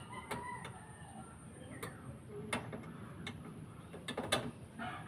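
Irregular sharp clicks and light knocks, about seven in five seconds, from hand tools working on metal mounting hardware, with faint bird chirps behind.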